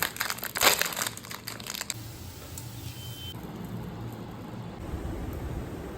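Crinkling, crackling noises for about two seconds, then a steady low background rumble.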